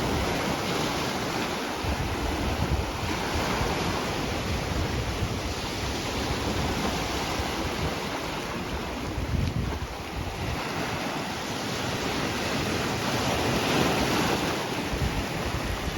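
Sea waves washing on the shore, a steady rush of surf, with wind buffeting the microphone in uneven low gusts.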